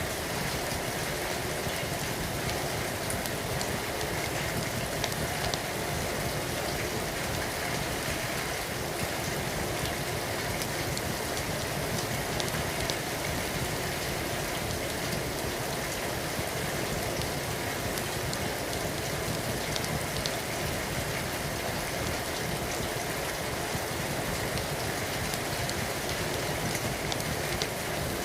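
Steady rain falling, an even hiss with scattered faint sharp ticks.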